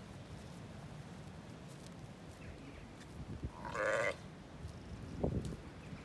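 A Zwartbles sheep bleats once near the middle, a single call of about half a second, over a steady low rumble of wind on the microphone. A brief low bump follows about five seconds in.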